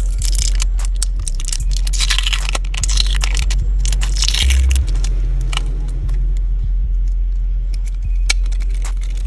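Small hand tools clicking and scraping against a smartphone's parts, with bursts of scraping in the first half and scattered sharp clicks throughout, over a steady low rumble.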